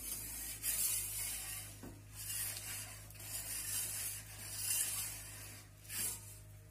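Perforated metal pizza peel scraping and sliding across the oven's baking stone as the pizza is turned, in several rasping strokes with a short knock about two seconds in and another near the end, over a steady low hum.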